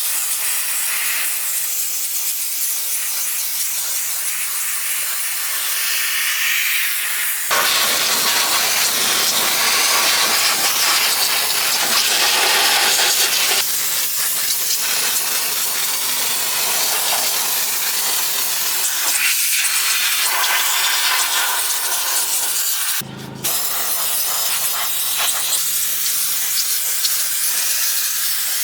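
Steam cleaner jetting steam in a continuous hiss onto caked mud. The hiss grows louder and fuller about a quarter of the way in, and breaks off for a moment about four-fifths of the way through.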